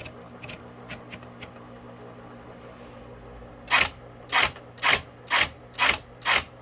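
Smith-Corona Coronamatic electric typewriter with its motor humming, a few light clicks, then from about halfway in a run of six loud, evenly spaced typing strokes, about two a second.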